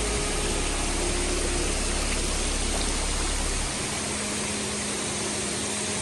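Waterfall and its stream rushing, a steady, even roar of water. A low rumble underneath stops a little past halfway through.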